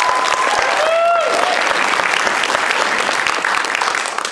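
Audience applauding loudly, with a few voices calling out briefly in the first second or so; the applause dies away near the end.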